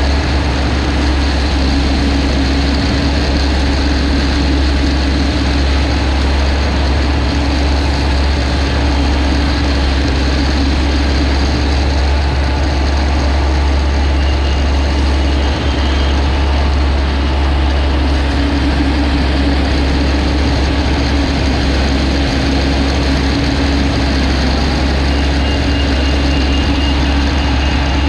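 Engine of a rice-harvesting machine running steadily, a deep unbroken drone with a steady hum above it.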